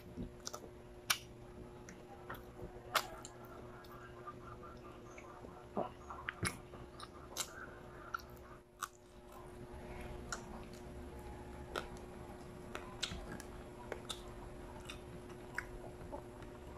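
Close-up mouth sounds of chewing and biting adobo-cooked field frog and rice, with many short, sharp crunches scattered throughout, over a steady low hum.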